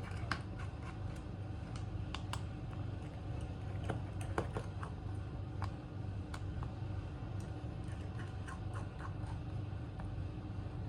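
Light, irregular clicks and taps of small hand tools working on a smartphone's screws and plastic parts during disassembly, over a steady low hum.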